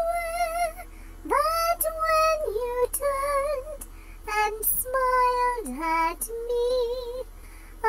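A high voice singing a slow song, with vibrato on long held notes and short pauses between phrases.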